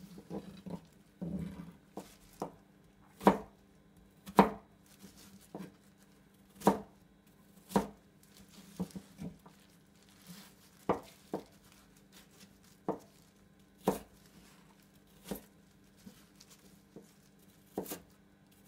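Kitchen knife chopping onion into dice on a plastic cutting board: separate, unhurried knife strikes on the board, roughly one a second, some much louder than others.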